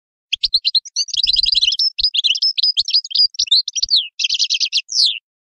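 European goldfinch singing: one unbroken phrase of quick, high twittering notes and trills, with a dense buzzy stretch near the end and a falling note to finish.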